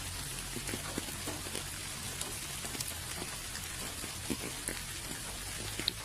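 Steady rain: an even hiss with many scattered drops tapping close by at irregular moments.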